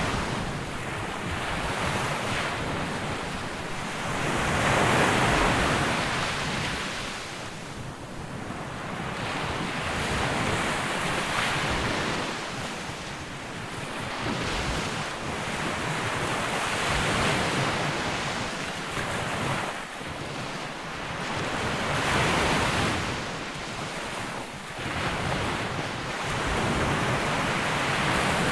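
Surf breaking on a sandy beach, the rush of each wave swelling and fading about every five to six seconds, with wind buffeting the microphone.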